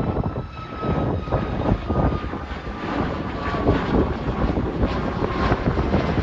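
Jet airliner's engines running, a steady rushing noise with a faint whine that slowly falls in pitch.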